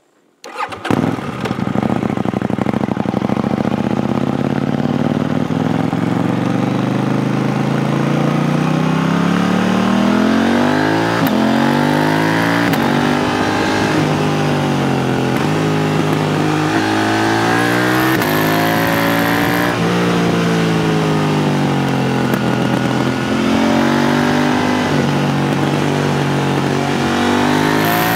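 KTM 890 Duke R's parallel-twin engine through an HP Corse Evoxtreme 310 exhaust with the dB killer fitted, coming in abruptly about a second in. It climbs slowly in pitch at first, then from about ten seconds revs up and drops back repeatedly as the bike accelerates and changes gear.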